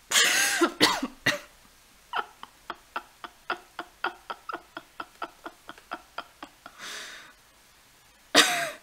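A person coughs hard several times near the start and again near the end. In between there is a quick run of short clicks, about five a second, for several seconds, and a breath.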